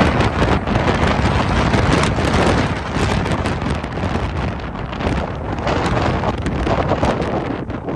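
Wind buffeting the microphone: a loud, gusty rumble that rises and falls unevenly.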